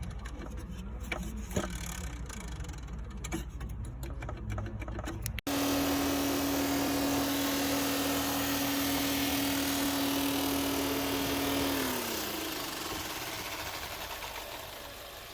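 Car radiator fan with a worn bearing. First there is a low steady hum with faint ticks. Then comes a steady whine with hiss, which drops in pitch and fades near the end as the fan spins down.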